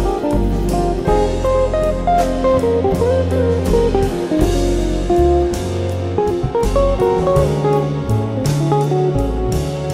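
Background music led by guitar, over a low bass line with a regular beat.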